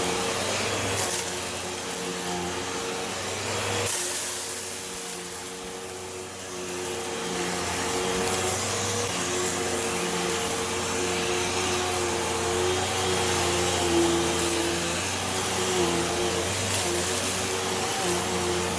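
Hoover Elite Rewind Plus upright vacuum cleaner running steadily, a motor hum over a suction hiss. There are two sharp knocks, about one and four seconds in, and the hiss drops for a few seconds after the second knock before coming back up.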